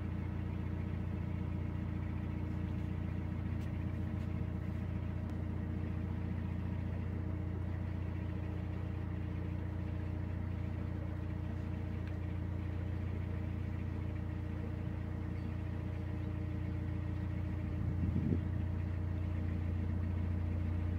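A narrowboat's inboard diesel engine running steadily, a constant low drone.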